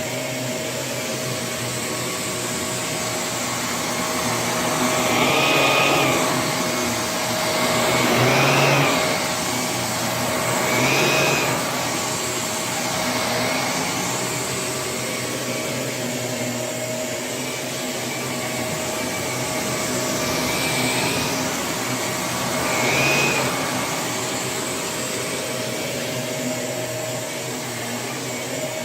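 Shark Navigator Lift-Away NV351 bagless upright vacuum running, a steady motor whine over a rush of air. Several times it briefly swells in pitch and loudness, then settles back.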